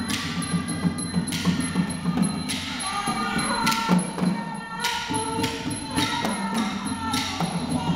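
Thai lakhon chatri ensemble playing: barrel drums beat steadily under sharp metallic strokes about once a second, with a wavering high melody line on top.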